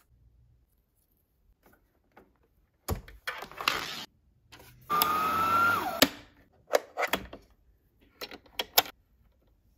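Brother CS7205 sewing machine's motor spinning the bobbin winder: about a second of steady, high whine that drops in pitch as the motor stops. Sharp plastic clicks follow as the bobbin is handled and dropped into the bobbin case.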